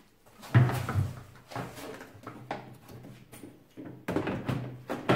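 Hard plastic knocks and clatter as a lawnmower's grass collection box is handled and fitted onto the back of the mower, the loudest knock about half a second in, with several more spaced through the rest.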